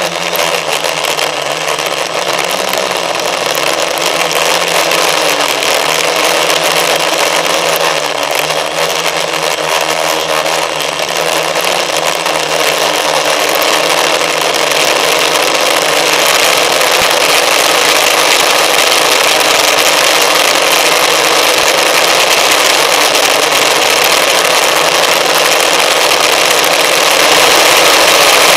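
Electric motor and propellers of an FPV model aircraft running under power, heard from its onboard camera as a steady rushing noise with a low hum that wavers in pitch. It gets a little louder in the second half.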